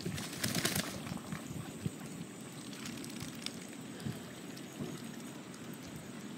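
Small splashes and lapping water as mallard ducks paddle and feed in shallow water, with a brief louder splashing rush about half a second in.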